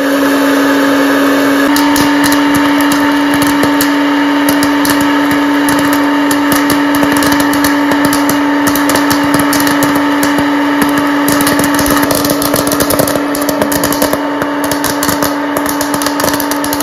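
Salton Cinema Popper hot-air popcorn maker running: a steady fan-motor hum, with kernels popping as rapid clicks that grow thicker in the last several seconds.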